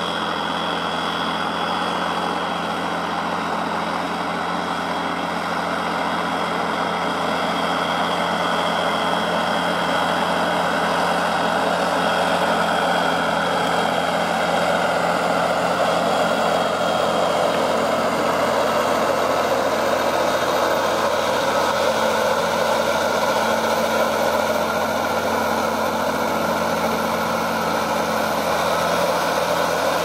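Fendt 936 Vario tractor's diesel engine running steadily under load as it pulls an eight-furrow reversible plough through the soil, growing a little louder as it comes closer. A thin high whine sits over the engine in the first half.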